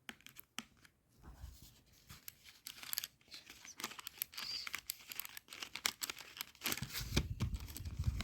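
Close-miked crackling and tearing noises made of dense, irregular clicks, with dull low thumps about a second in and again near the end.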